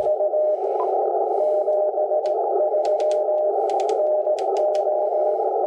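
ICOM IC-7300 HF transceiver receiving in CW mode on the 20-metre band: band noise through a narrow filter, with a Morse code signal, a single steady tone keyed on and off in dots and dashes. A few sharp clicks fall in the middle.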